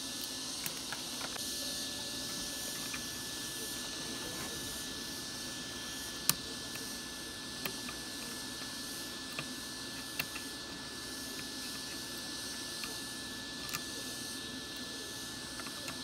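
Screwdriver working the terminal screws of a small micro switch: scattered light metallic clicks and ticks, the loudest about six seconds in, over a steady hiss and a faint high whine.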